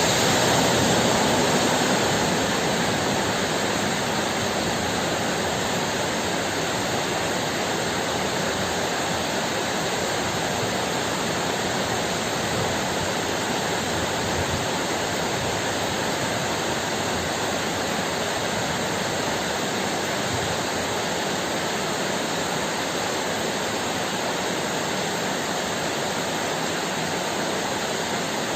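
Heavy rain falling steadily, a dense, even hiss. It is slightly louder for the first couple of seconds, then settles.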